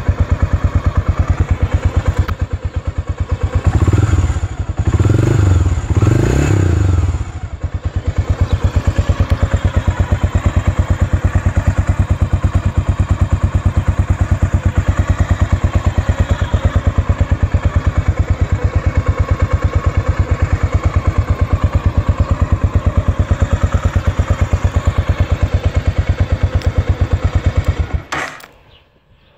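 1988 Honda XBR 500's single-cylinder four-stroke engine idling, revved in three quick blips about four to seven seconds in, then settling back to a steady idle until it is switched off near the end.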